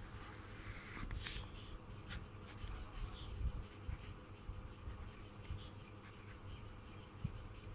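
Stainless steel fine nib of a Luxor fountain pen scratching faintly across notebook paper in short, irregular strokes as words are written.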